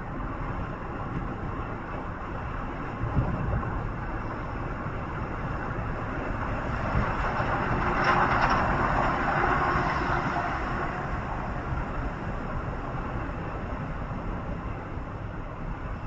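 Steady running noise of a moving vehicle, with a low rumble throughout, a single knock about three seconds in, and a rise in loudness lasting a few seconds around the middle.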